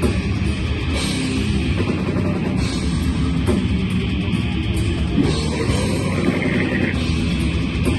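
Metal band playing live: heavily distorted guitars and bass over fast, dense drumming, recorded loud from the room.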